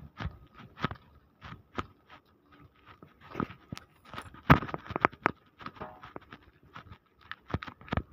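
Footsteps in rubber flip-flop slippers on gritty concrete and dirt: irregular crunching steps, about one or two a second, with a cluster of sharper ones around the middle.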